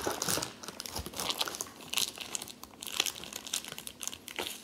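Thin plastic packaging crinkling as hands unwrap a chainsaw guide bar: irregular quick crackles and rustles.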